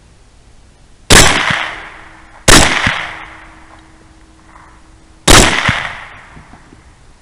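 Three rifle shots fired at a hog through a thermal scope: two about a second and a half apart, then a third about three seconds later. Each crack dies away in a long echo, and a faint thump follows each shot a fraction of a second later.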